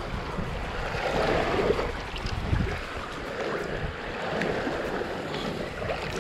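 Wind buffeting the microphone over shallow salt water, with low rumbling gusts and water lapping and sloshing around the wading angler.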